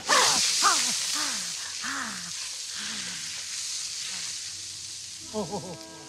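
Loud sizzling hiss of a red-hot, doorknob-scorched hand plunged into snow. It starts suddenly and fades slowly over several seconds, under a man's groans that fall in pitch.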